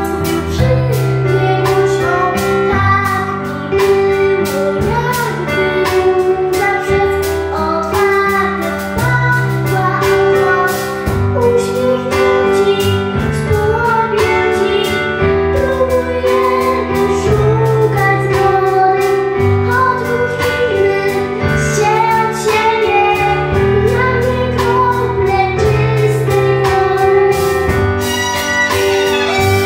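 A young girl singing a Polish pop song into a microphone over amplified accompaniment with a steady beat and a repeating bass line. Near the end she starts playing the violin.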